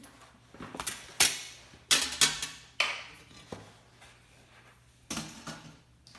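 Metal parts of a B4-kun folding fire pit clanking and knocking together as it is assembled. A series of sharp clanks, the loudest about a second in and around two seconds in, and another few near the end.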